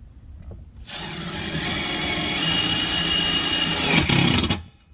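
Power drill driving a panhead screw, running steadily for about three and a half seconds and stopping abruptly near the end.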